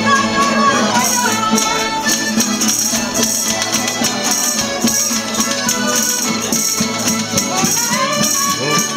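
A traditional cuadrilla folk band playing a dance tune on violin, accordion, guitars and a lute, with a rattling percussion instrument joining about a second in.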